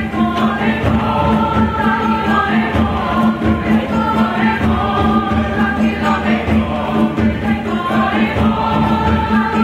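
Mixed chamber choir singing in parts, with hand drums beating underneath.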